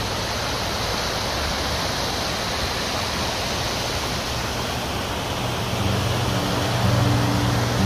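Fast-flowing floodwater rushing over flooded ground, a steady hissing rush. Low steady tones come in about six seconds in.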